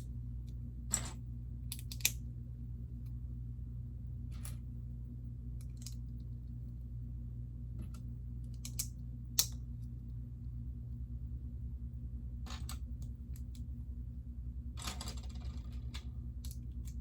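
Plastic Lego pieces being handled and snapped together: scattered, irregular sharp clicks with a short rustle of pieces about fifteen seconds in, over a steady low hum.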